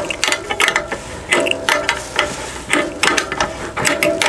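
Hand ratchet clicking in quick, uneven runs as it is worked back and forth, tightening the adjusting screws that draw a loft-ladder frame up into the ceiling opening.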